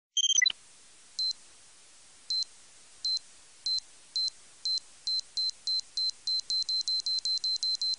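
Cartoon bomb countdown sound effect: short, high electronic beeps that come faster and faster, from about one a second to about four a second near the end, after a brief electronic blip at the start.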